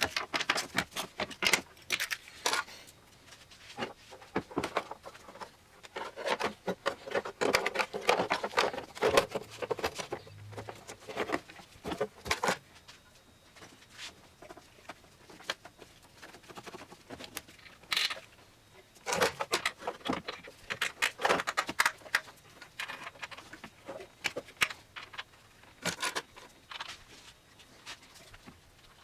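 Irregular clatter of hand tools and metal and plastic parts being handled and fitted: runs of clicks, taps and rattles with short pauses between them.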